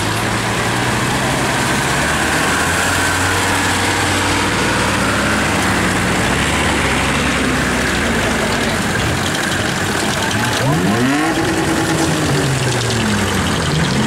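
Tractor engines running steadily at low speed as tractors drive slowly past. Near the end, an engine revs up and back down a couple of times.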